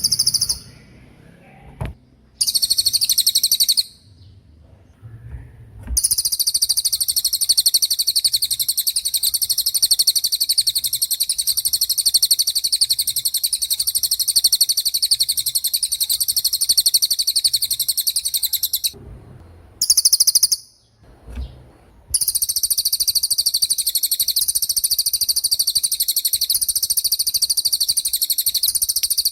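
Cililin songbird giving its rapid, high-pitched 'tembakan' trill: very fast repeated notes in bursts, two long runs lasting over ten seconds each and a few short ones, with brief pauses between.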